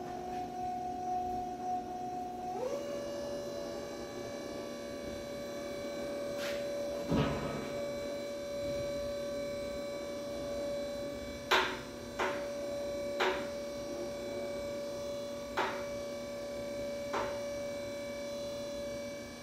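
Electric lift motor of a Tawi lifting trolley whining steadily as it raises a pail up the mast, dropping slightly in pitch about two and a half seconds in. A handful of sharp clicks come along the way.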